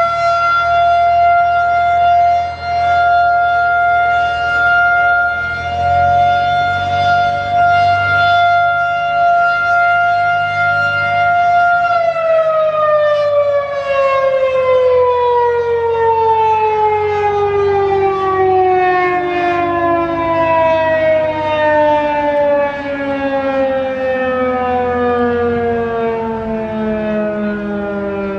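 Federal Signal 2001-130 electromechanical warning siren holding a steady full-pitch wail for about twelve seconds, then winding down in a long, falling glide, as in a short-alert test cycle. During the wind-down a second siren, a Federal Signal 3T22, can be heard falling in pitch alongside it.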